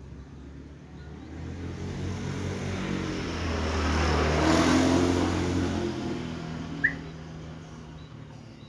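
A motor vehicle passing by: its engine hum and road noise build up, peak about halfway through, then fade away. A single short bird chirp about two seconds before the end.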